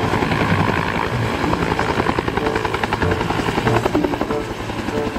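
Bell Huey-type two-bladed helicopter running at lift-off power, its main rotor beating in a rapid, even pulse over the steady turbine roar.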